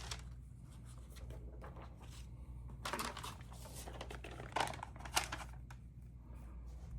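Paper rustling and light handling of stamp album sheets and stamps, with the louder rustles about three seconds in and again around five seconds.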